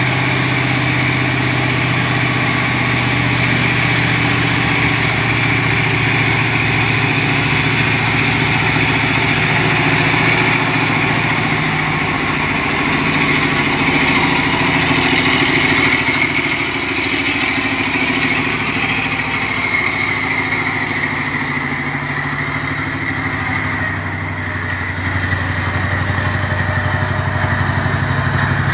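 Heavy diesel engine of a Hino semi-trailer truck running steadily under load as the truck pulls slowly past, with a whine above the low engine note.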